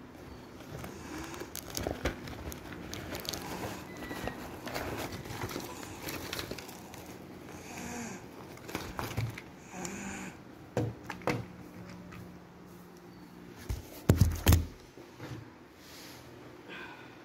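Plastic courier mailer bag crinkling and rustling as it is handled, with scattered small clicks. Near the end comes a short cluster of loud knocks, the loudest sound here.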